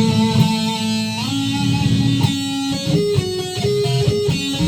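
Telecaster electric guitar played on its front (neck) pickup for a warm tone: a held chord whose notes slide up about a second in, then a run of single notes.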